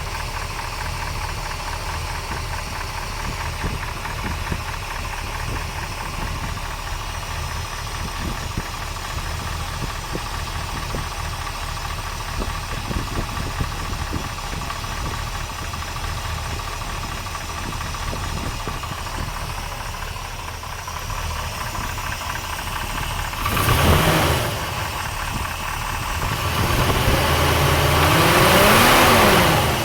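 Chevrolet 454 big-block V8 idling with a rapid ticking knock, blipped once briefly and then revved up and back down for a few seconds near the end. The noise is loudest at the driver-side cylinder head and doesn't sound like rod knock to the owner; oil pressure is good.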